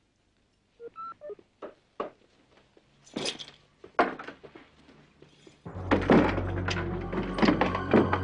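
Soft footsteps and small clicks, then a door being shut with a sharp latch click about four seconds in. A little over halfway through, dramatic music with a low drone and heavy, regular beats comes in.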